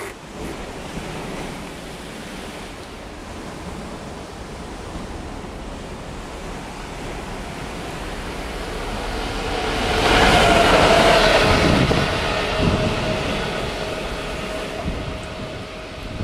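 Freightliner Class 66 diesel locomotive 66552, its two-stroke V12 engine running, approaching and passing close by with wheels rolling on the rails. The sound builds steadily, is loudest about ten seconds in, then fades as it goes by, with a wash of wind and sea noise underneath.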